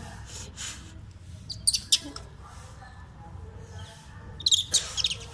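Infant rhesus macaque giving short, high-pitched squeaks as its mother pulls food from its mouth, in two quick clusters: about two seconds in and again near the end.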